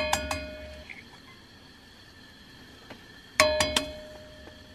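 Eggs rapped against the rim of a pan to crack them: two clusters of three or four sharp taps, about three and a half seconds apart, each leaving the pan ringing briefly.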